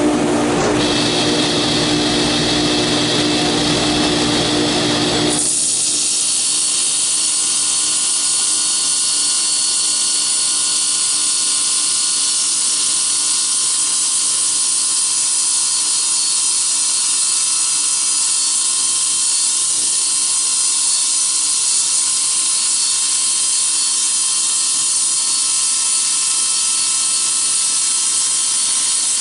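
Table saw with a 40-tooth carbide blade cutting aluminum strips. It runs steadily and loudly, and about five seconds in it settles into a high-pitched metallic whine that holds steady for the rest of the cut.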